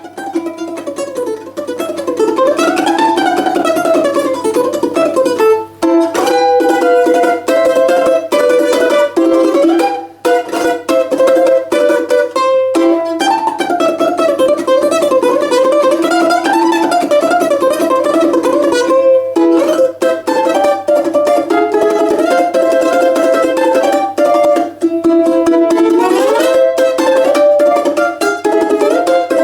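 Russian balalaika played solo in a lively folk quadrille, strummed and tremoloed, with a repeated low drone note under a skipping melody and brief breaks between phrases.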